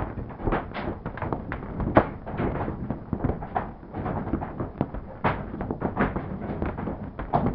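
Hailstones striking a car's roof and windshield, heard from inside the car: a dense, irregular patter of sharp taps and knocks, several a second.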